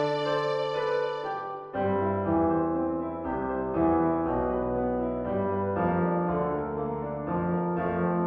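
Piano music from a slow piece for violin and piano, held notes and chords. About two seconds in it changes abruptly to deeper, fuller chords and a duller sound.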